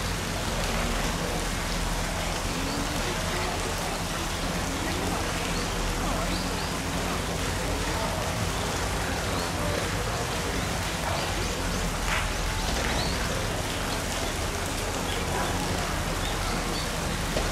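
A steady rushing hiss with a low, even hum underneath and faint distant voices now and then.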